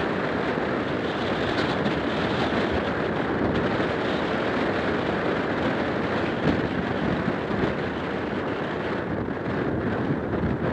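Steady wind buffeting an outdoor camera microphone, an even rushing hiss with no separate events.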